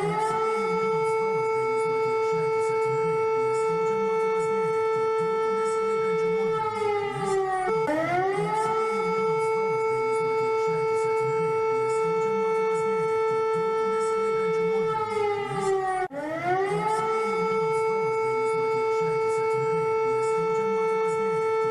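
Civil defense warning siren sounding in repeated cycles, the Lithuanian public emergency alert signal. Each cycle the pitch rises quickly, holds steady for about six seconds, then sags slightly before cutting off and starting over, about every eight seconds.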